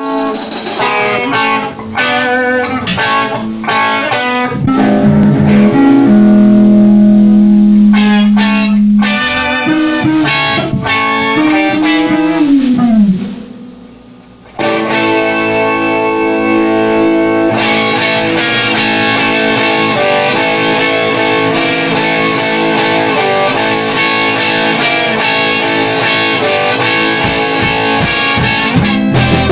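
Electric guitar played through effects with distortion: picked notes, a long held note, and a note that bends down in pitch. About 13 seconds in it drops away briefly, then returns as a dense sustained wash of layered tones.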